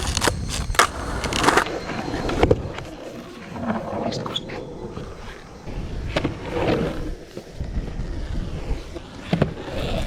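Skateboard wheels rolling on concrete with a steady rumble, broken by several sharp clacks as the board strikes the ground.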